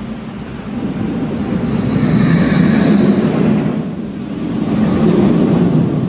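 Empty B&M roller coaster train on a test run, rushing past through the station on its track with a loud wheel rumble that swells twice, about two seconds in and again around five seconds in.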